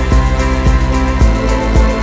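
Background music with a steady beat: sustained chords over a deep bass pulse, about two beats a second.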